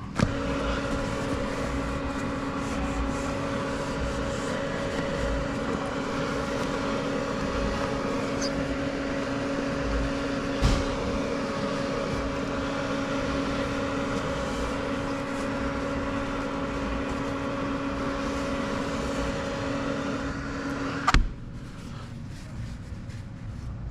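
A motor-driven machine switched on with a click and running with a steady hum for about 21 seconds, with one click partway through, then cut off with a click.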